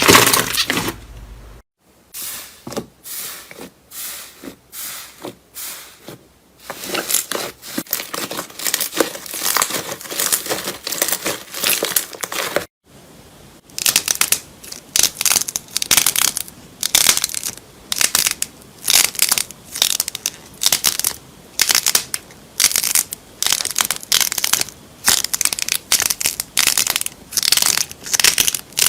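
Slime being squeezed and pressed by hand, a dense run of crackling, popping clicks. The sound cuts off abruptly about two seconds in and again about thirteen seconds in, where one clip changes to the next.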